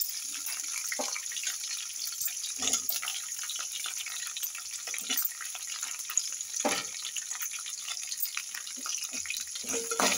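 Green chillies frying in hot oil with peanuts, onion and garlic in an aluminium pan, a steady crackling sizzle. A metal slotted spatula scrapes and knocks against the pan a few times as they are stirred.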